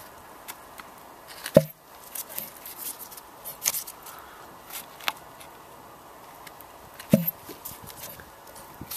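Scattered metal clicks and scrapes from a Copeland refrigeration compressor's motor rotor and crankshaft being turned over by hand, with two sharper knocks, one about a second and a half in and one about seven seconds in. The shaft turns over without binding, so the mechanical side is sound even though the motor has burnt out.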